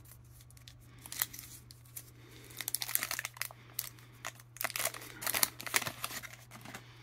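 Paper wrapper of a 1989 Topps baseball sticker pack being crinkled and torn open by hand, in several crackling bursts.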